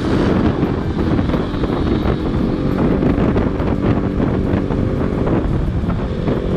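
KTM RC 200's single-cylinder engine running at a steady cruise on the move, with wind rushing over the microphone.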